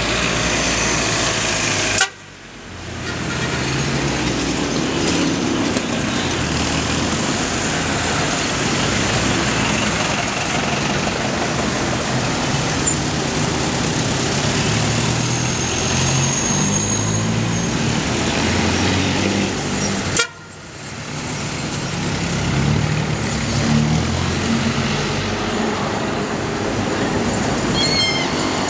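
Busy city street traffic: old cars and a motorbike running past, with car horns tooting. The sound drops out sharply twice, about two seconds in and about twenty seconds in, then comes back.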